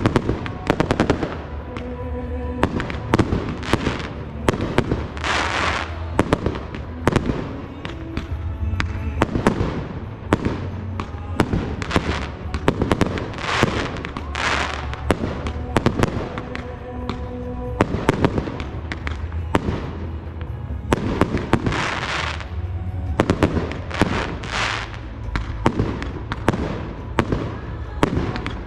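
Aerial firework shells bursting in rapid, uneven succession, a dense run of sharp bangs with several short stretches of crackling, over music playing underneath.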